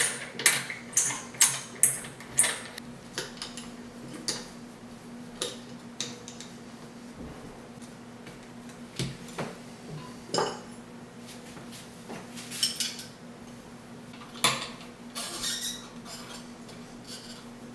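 Strobe arm sections and ball clamps for an underwater camera housing clinking and clicking as they are handled and fitted together on a wooden table. The knocks come quickly, several a second, for the first few seconds, then thin out to scattered clusters.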